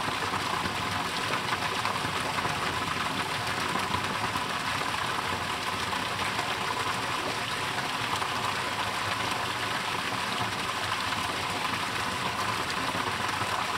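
Creek water flowing, a steady even rush with no breaks.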